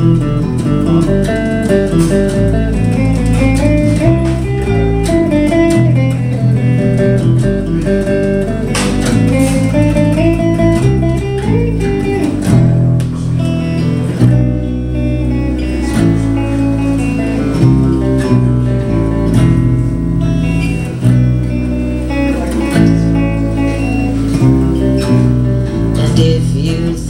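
Instrumental break in a live acoustic blues-style band song: an electric guitar plays a moving melodic lead line over a steady bass guitar line.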